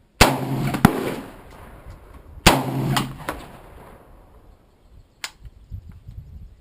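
AR-15 rifle fired twice, about two seconds apart, each shot trailing off in a long echo and followed by a sharp crack; a shorter sharp crack comes about five seconds in.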